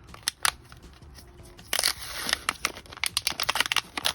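Plastic packaging of a multi-purpose epoxy putty stick being handled: a few clicks, then from about halfway a loud crinkling with a quick run of crackles and clicks.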